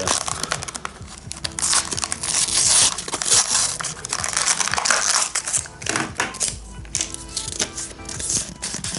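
Stiff plastic blister packaging crackling and crunching as it is pried and torn open by hand, over background music.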